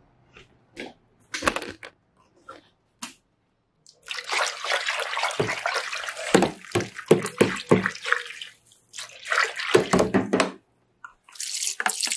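A hand whisk stirring methyl cellulose powder into water in a plastic tub, mixing the thickener to dissolve it. A few short splashes come first, then about six seconds of continuous sloshing and splashing, a brief pause, and stirring again near the end.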